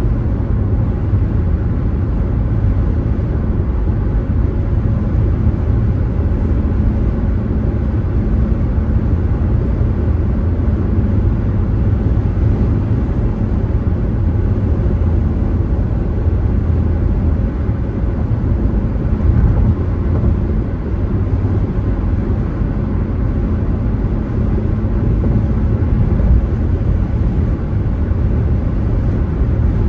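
A car driving along the road: a steady low rumble of tyre and engine noise.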